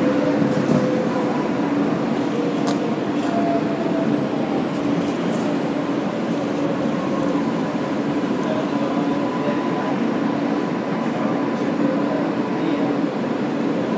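Interior running noise of an R143 subway car rolling at steady speed on elevated track: an even wheel-on-rail rumble with a steady hum and a fainter higher whine. A few light clicks come about three and five seconds in.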